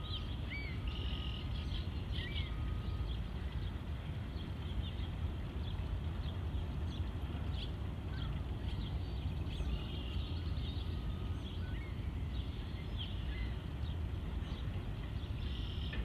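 Outdoor ambience: a steady low rumble with many brief bird chirps scattered throughout.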